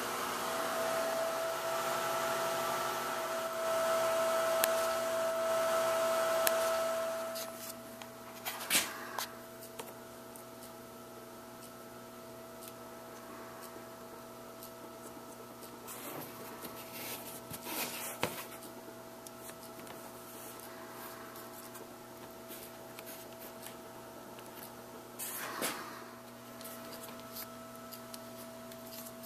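A steady hum runs throughout, with a louder hiss over it for about the first seven seconds. A few brief rustles and taps come from a paper pattern and pieces of veg-tan leather being handled on the bench.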